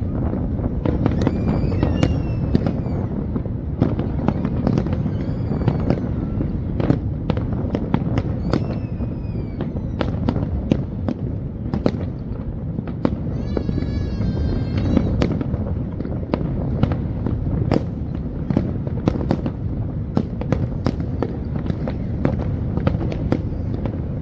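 Fireworks display: a continuous low rumble of bursts with many sharp cracks. Several whistling shells glide in pitch early on, and a wavering high whistle sounds about halfway through.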